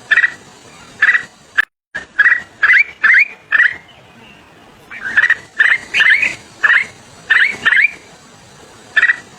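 A small bird calling over and over in short, sharp chirps, often in quick pairs or runs, with a pause of about a second near the middle.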